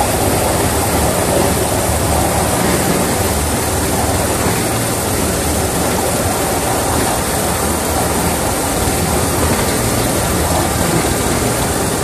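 Miniature railway train running steadily along the track, heard from the cab of its model Class 31 locomotive: a continuous rumble of wheels and running gear on the rails.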